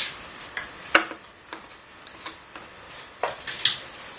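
Small items being handled, among them the astringent lotion bottle being opened and used on cotton: a handful of scattered light clicks and taps, the loudest about a second in and two more near the end.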